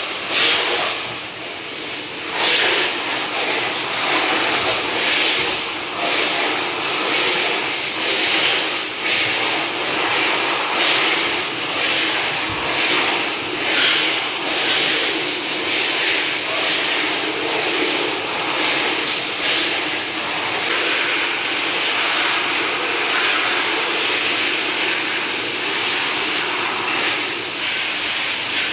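Hose spraying a hard jet of water over the poultry house's feed and water lines: a loud, steady hiss that surges and eases as the spray moves across the lines.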